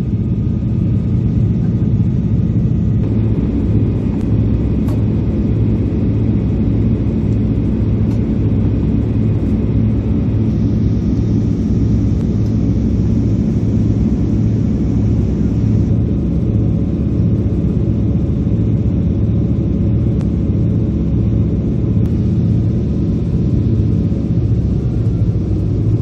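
Kometa hydrofoil's diesel engines running at cruising power while the boat is foilborne, a loud, steady low drone heard from inside the passenger cabin, with the rush of water and spray along the hull.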